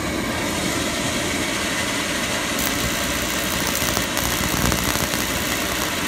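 Beckett oil burner's motor and blower running with a loud, steady rush while its new electronic igniter is powered for a spark test, with a fine crackle from the spark riding on top.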